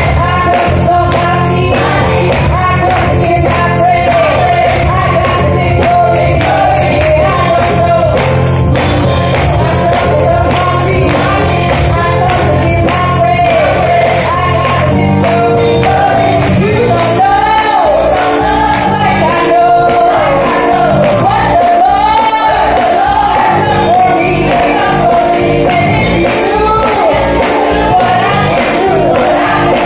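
Solo female gospel singing through a handheld microphone, with full-voiced, wavering held notes, over a live church accompaniment with a steady clapped and percussive beat. About halfway through, the low bass of the accompaniment drops away, leaving the voice more exposed.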